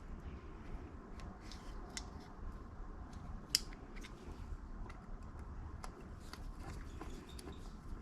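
Faint scattered clicks and scraping of a screwdriver working a small Torx screw into a door lock actuator that is not catching, with one sharper click about three and a half seconds in.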